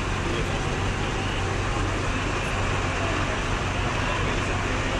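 Steady low hum of fire engines idling at a fire scene, over general street traffic noise.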